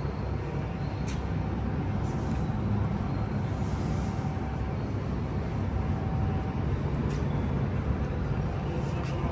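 Busy railway station ambience: a steady low rumble of trains and crowd with a faint constant hum, broken by a few brief clicks.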